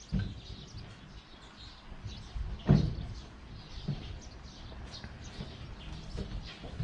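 Birds chirping, with a thump at the start and a louder knock nearly three seconds in.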